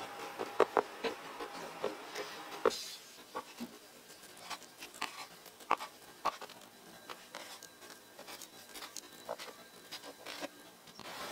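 A spatula scraping and stirring sauce in a frying pan, then a knife crunching through the crispy breadcrumb coating of fried bread rolls and tapping on a wooden cutting board. The sound is a scatter of sharp crackles and clicks, thinning out after about three seconds.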